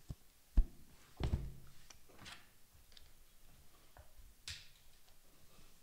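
A book being shut and laid down on a desk: a sharp knock about half a second in, then a dull thump, followed by a few lighter taps and rustles of handling.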